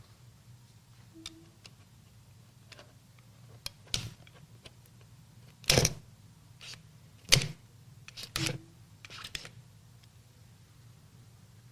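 Cardboard and packaging of an Apple Magic Keyboard box being handled during unboxing: a handful of scattered sharp clicks and knocks with pauses between them. The loudest comes about halfway through and is followed by a double knock, over a faint low hum.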